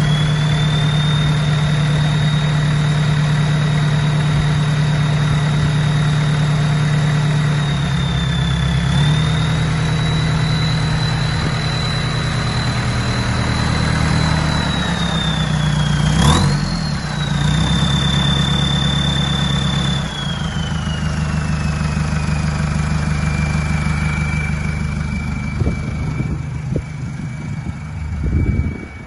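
Mercedes Sprinter van's turbocharged engine held at raised revs with a loud, high turbo whistle over the engine rumble; the whistle rises at first, holds, wavers briefly with a click about halfway, then falls in pitch as the revs drop about two-thirds through. The catalytic converter just after the turbo has been removed.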